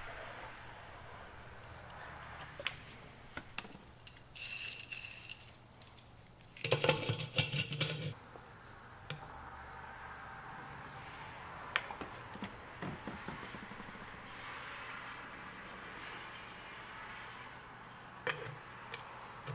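Quiet hand work on a truck wheel hub's greased tapered roller bearing and seal: scattered light metal clicks, with a brief clattering rattle about seven seconds in. A faint high chirp repeats just under twice a second through the second half.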